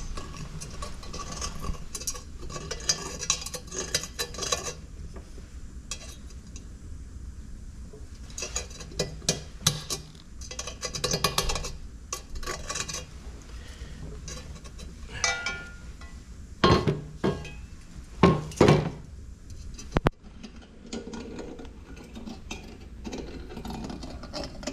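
Metal tools clinking and scraping against a stainless steel intake pipe in several bursts of clicks, with a few louder sharp knocks about two-thirds of the way in.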